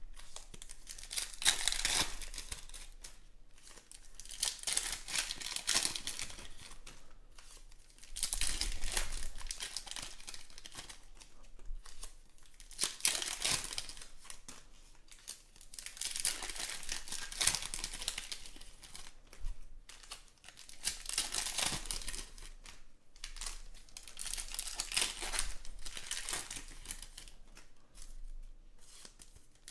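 Foil trading-card pack wrappers crinkling and tearing open, with cards handled and slid against each other. It comes in bursts every few seconds.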